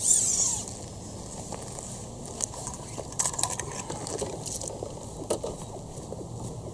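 Rustle of a nylon carp weigh sling laid down on the unhooking mat, loudest at the start, followed by scattered light clicks and rustles of a plastic bucket being picked up and footsteps on gravel.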